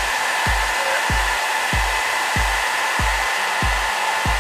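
Electric radiator cooling fans on a Kawasaki ZX-6R running steadily, a constant rush of air. Under it, background music with a steady thumping beat about one and a half times a second.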